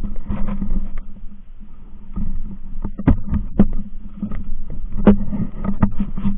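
A steady low engine hum with many irregular clanks and knocks over it.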